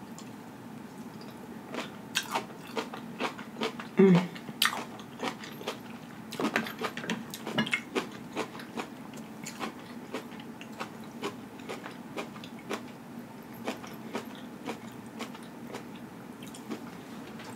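Close-miked chewing of a mouthful of kimchi: wet, crisp crunches, quick and dense at first and thinning out over the second half. A short vocal hum with falling pitch, about four seconds in, is the loudest sound.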